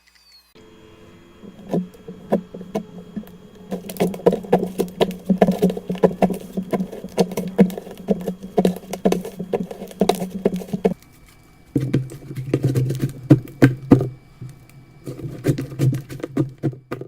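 Slime being pressed and worked by hand, giving rapid runs of sticky pops and clicks, with short pauses about eleven and fifteen seconds in.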